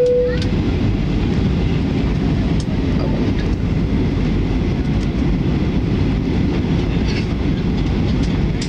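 Steady low rumble of airliner cabin noise on the descent to landing: engine and airflow noise heard inside the cabin. A held tone fades out just after the start, and a few faint clicks sit on top.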